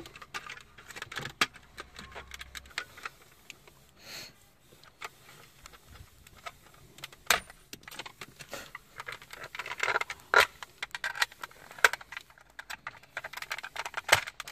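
Hard plastic clicking and rattling as a flat-blade screwdriver presses in the clip teeth and prises apart the halves of a car's plastic steering column cover, with a few sharp snaps as clips let go.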